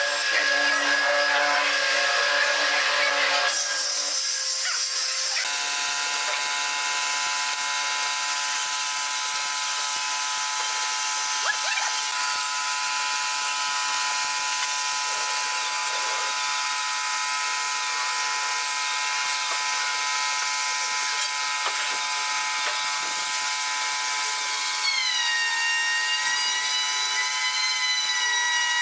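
Electric pad sander running on a pine door for the first few seconds. Then a steady hiss with a held hum from an air spray gun spraying clear finish onto the wood, with a few tones sliding down in pitch near the end.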